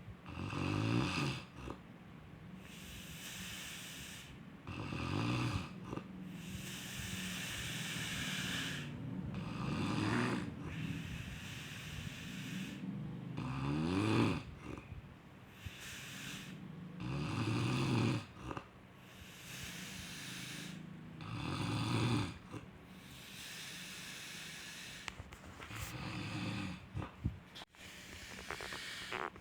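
Steady, rhythmic snoring: a low, buzzing snore about every four seconds, seven in all, with a breathy hiss between snores. The snore about halfway through rises in pitch.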